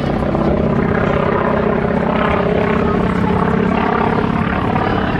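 Grumman FM-2 Wildcat's Wright R-1820 Cyclone nine-cylinder radial engine and propeller running steadily in flight.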